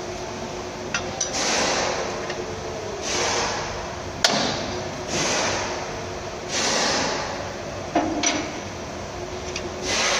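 Sharp metallic clinks and knocks of hand tools and parts on the clutch assembly, a handful of separate strikes. Behind them a rushing noise swells and fades about every one and a half to two seconds.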